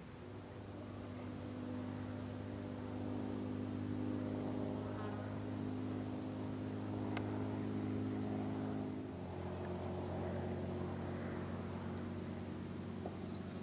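An engine humming steadily, its pitch stepping down a little about nine seconds in.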